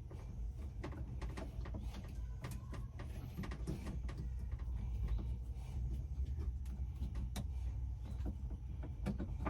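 Faint, scattered clicks and scrapes of a screw being undone on a truck's dash heater/AC control panel, over a steady low rumble.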